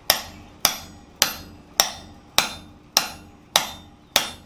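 Hammer blows driving a steel drift into a hole in red-hot bar stock on an anvil, widening the punched hole. Eight evenly spaced strikes, a little under two a second, each with a short metallic ring.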